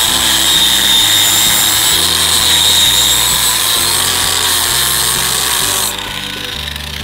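Angle grinder with a flap disc sanding a steel square tube: a loud, steady grinding rasp over the motor's whine. It drops off near the end as the disc comes off the metal.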